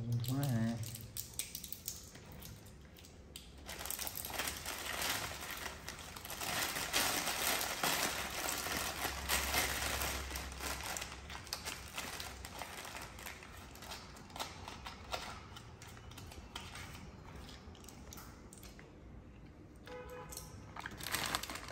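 Plastic carrier bag and foil-wrapped packets crinkling and rustling as they are handled and rummaged through, in uneven bursts of crackle.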